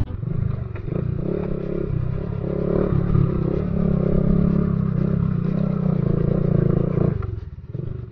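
Honda XRM motorcycle's single-cylinder engine running under load as the bike climbs a grassy dirt hill, its pitch wavering a little. The engine sound falls away about seven seconds in.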